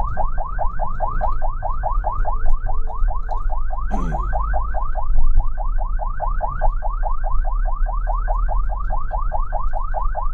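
Ambulance siren on a fast yelp: rapid rising wails, about seven a second, over a low engine rumble.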